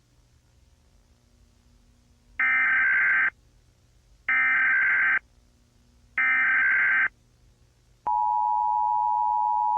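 Emergency Alert System SAME header: three harsh bursts of digital data tones, each just under a second long, about two seconds apart. Near the end the EAS two-tone attention signal starts, a steady two-pitch tone.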